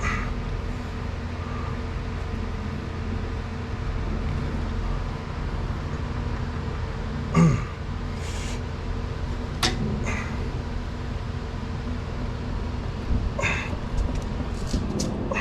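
Steady background hum with a few short metallic knocks and clicks of hand tools working on the vehicle's parts. The loudest knock comes about seven seconds in, and a cluster of clicks follows near the end.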